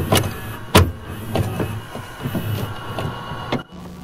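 VHS video cassette recorder's tape mechanism whirring, with a series of sharp mechanical clicks as the tape is loaded and starts to play. It cuts off suddenly near the end, leaving a steady low hum.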